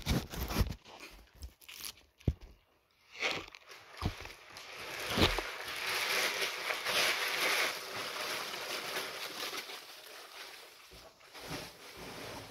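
White packing paper crinkling and rustling as hands crumple and fold it for wrapping. A few sharp crackles come in the first seconds, then a longer stretch of continuous rustling in the middle that fades toward the end.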